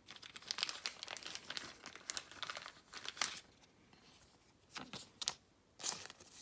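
Trading cards being handled and slid against one another in the hands, a crisp, crinkly rustling. It comes in a busy run of bursts for the first three seconds or so, then two shorter bursts near the end.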